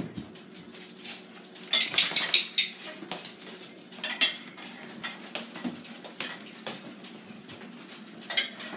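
Light clinking and clattering of hard objects knocking together: a quick run of clinks about two seconds in, another around four seconds, and more near the end, over a faint low hum.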